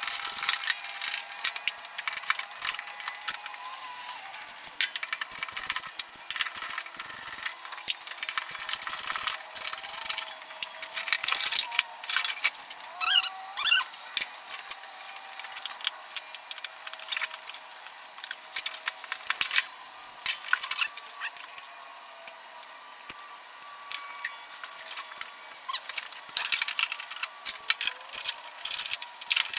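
Metal hand tools clinking, clicking and scraping in an irregular stream as bolts are worked loose.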